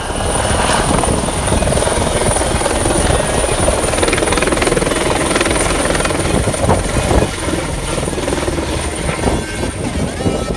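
Loud, steady engine noise that cuts in abruptly, with a thin, high, steady whine held above it.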